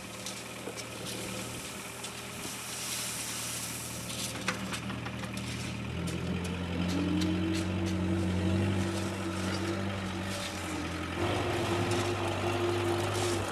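Small front-end loader tractor's engine running steadily, then rising in pitch and getting louder about six seconds in as it works. Occasional clicks and scrapes of shovels in gravel ballast sound over it.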